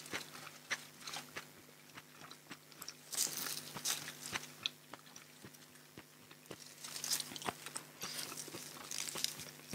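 Close-miked eating sounds: crisp crunching and chewing of raw vegetables with small mouth clicks. Twice, for a second or so, there is a louder rustle as leafy greens are handled and torn.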